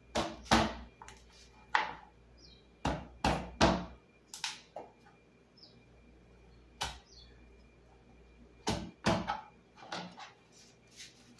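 Kitchen knife and utensils knocking and clattering on a cutting board and counter during food prep: about a dozen sharp knocks at irregular spacing, some in quick clusters.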